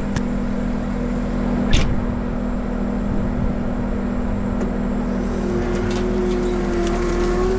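Skid loader engine running steadily under load, heard from inside the cab, as the machine pushes through brush and small trees. A single sharp crack comes about two seconds in, and from about five seconds a higher whine joins, with scattered ticks.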